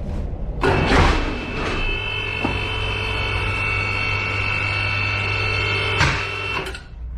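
Car lift's electric motor running with a steady whine as it raises the car, starting with a knock just under a second in and cutting off near the end.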